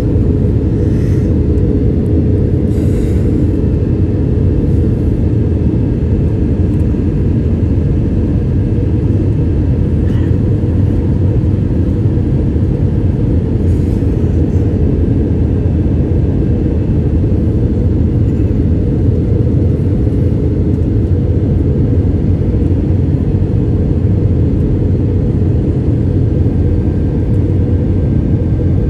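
Airliner cabin noise heard from inside the cabin: a loud, steady, deep rumble of engines and airflow with a faint steady hum.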